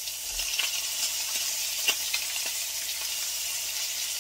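Crappie fillets sizzling as they fry in a cast-iron skillet, with scattered taps and scrapes of a utensil against the pan, the sharpest about two seconds in.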